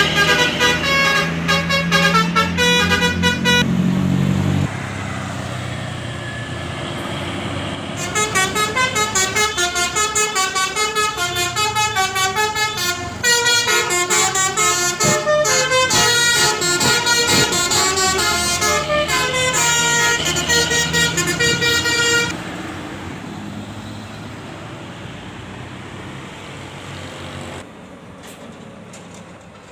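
Telolet bus horn, a multi-note air horn playing quick melodic runs of stepped notes: a short burst at the start, then a long run of about fourteen seconds starting some eight seconds in. A quieter steady rumble fills the gaps between and after.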